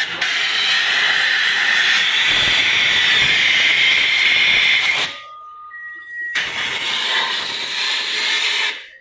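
Compressed-air spray gun blasting into the rear differential housing, a loud steady hiss, to flush iron dust and metal particles out of the pinion bearing seats. One long blast of about five seconds, a short pause, then a second blast.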